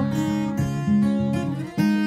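Background music on acoustic guitar, with strummed chords.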